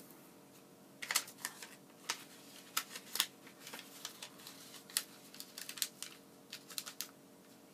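Origami paper rustling and crinkling as it is folded and creased by hand: a string of short, crisp crackles, irregularly spaced, starting about a second in and stopping near the end.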